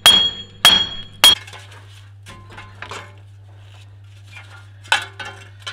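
Hammer blows on the rusty steel steering knuckle and wheel hub, three in about a second and a half, each ringing, knocking the old wheel hub loose. Then lighter metal clinks and rattles as the loosened hub and tools are handled.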